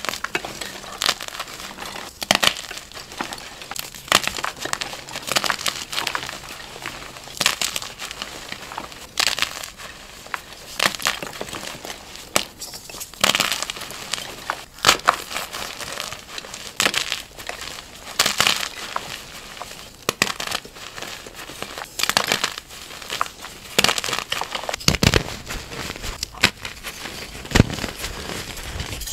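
Dyed gym chalk being crushed and crumbled, a run of dry crunches and crackles that come irregularly, a loud crunch every second or two with fine crackling between, and fuller, deeper crunches near the end.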